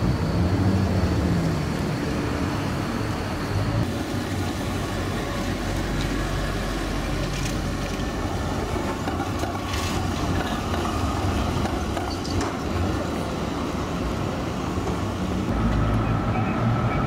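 Articulated electric trolleybuses driving past on a city street over steady traffic noise. A faint steady whine rides on the rumble for much of the time.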